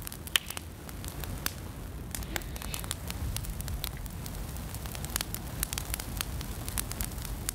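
Wood campfire crackling, with many sharp irregular snaps and pops over a low steady rumble.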